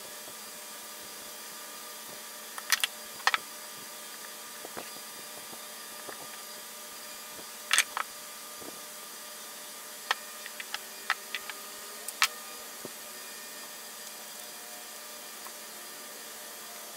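Scattered sharp clicks and taps from masking small metal lathe parts by hand with blue painter's tape: tape pulled and pressed, parts and a utility knife handled on a plastic-covered bench. They come in pairs around three and eight seconds in, in a quick cluster a little later and once more near twelve seconds, over a steady hiss.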